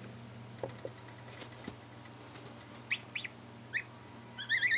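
Week-old goslings peeping: a few short, high peeps around the middle, then a longer run of peeps near the end, over a steady low hum.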